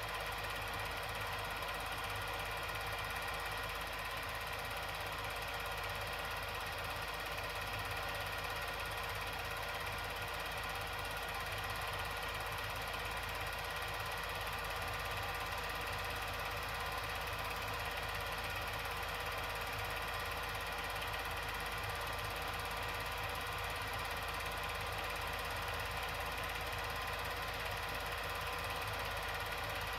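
Steady mechanical whirring hum with several constant tones and a fast low flutter, unchanging throughout.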